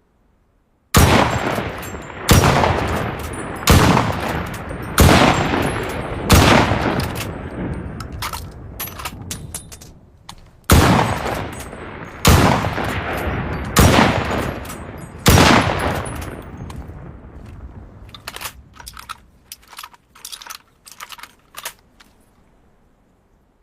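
Mosin-Nagant M44 bolt-action carbine firing: five shots about a second and a half apart, each with a long echoing tail, a pause, then four more. Near the end there is a quick series of short, sharp clicks.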